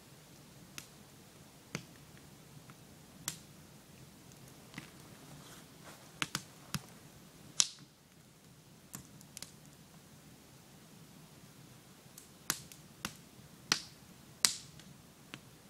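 Campfire of split wood crackling and popping: sharp, irregular snaps about once a second, the loudest a little past halfway and near the end.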